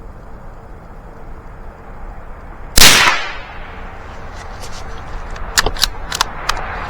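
A single shot from a .22 long rifle, sharp and loud, about three seconds in, fading over about half a second. A string of small sharp clicks follows.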